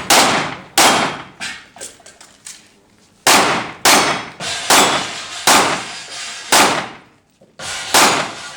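Handgun shots fired in a string, about nine loud reports with short echoing tails: two in the first second, a pause of about two seconds with only faint knocks, then a steady run of shots spaced well under a second apart.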